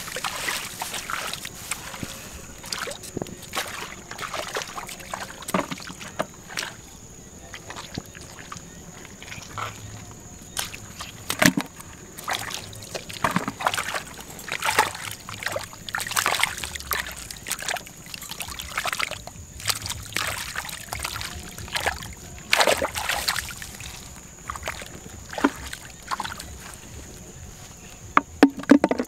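Feet squelching through wet mud, then hands splashing and sloshing in a shallow muddy water channel while grabbing fish, in irregular bursts.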